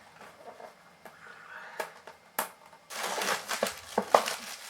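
A speaker's retail box and packaging being opened by hand: faint handling at first, two sharp clicks near the middle, then about a second and a half of louder rustling with a few knocks near the end.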